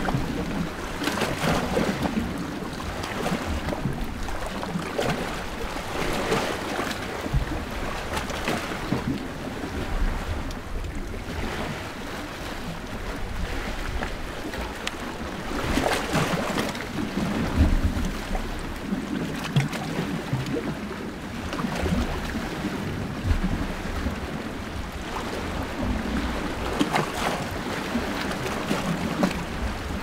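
Small sea waves washing against the shore, swelling and falling back every few seconds.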